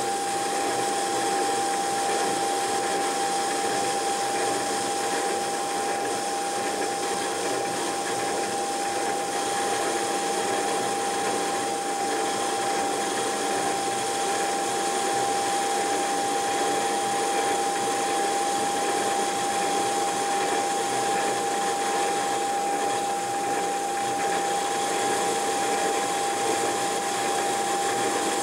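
Metal lathe running, its cutting tool turning a spinning mild steel bar, with a steady whine through an even, unbroken machining noise.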